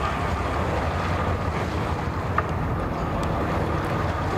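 Mercury 275 hp outboard on a bay boat running at idle in the water, a steady low hum, with wind noise on the microphone.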